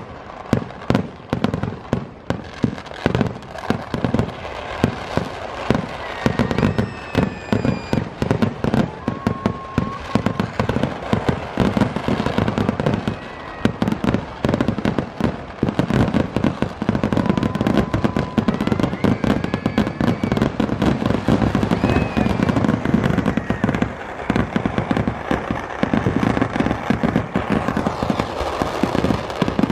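Temple-festival fireworks display (vedikettu) going off: a dense, unbroken barrage of firecracker bangs, many a second, with a few thin whistling tones gliding over the explosions.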